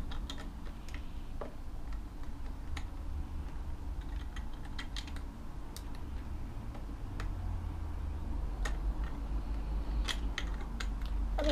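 Plastic Lego bricks clicking and tapping as they are handled and pressed together, in scattered, irregular clicks over a low steady rumble.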